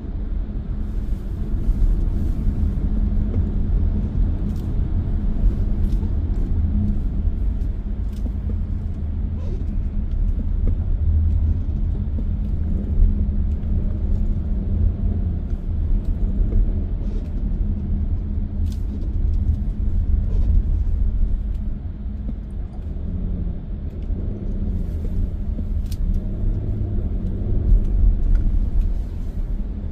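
Car cruising at speed on an expressway, heard from inside the cabin: a steady low rumble of road and engine noise.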